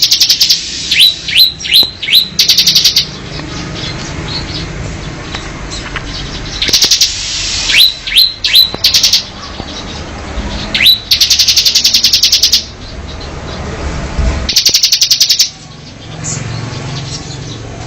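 Mountain cemblek bird calling: loud bursts of fast rattling notes, each about a second long, alternating with runs of three or four short whistles that slide down in pitch. The pattern repeats several times, with the longest rattle about two thirds of the way through.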